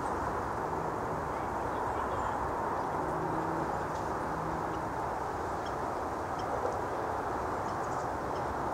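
Steady rushing hum of distant road traffic, with a faint low drone for a couple of seconds in the middle and a few faint, short, high chip notes from small birds.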